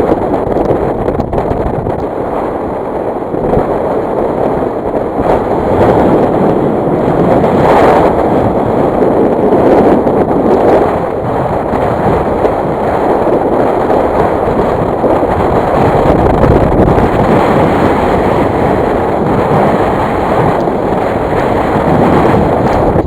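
Wind buffeting the camera microphone, a loud, gusting rumble that swells and eases every few seconds.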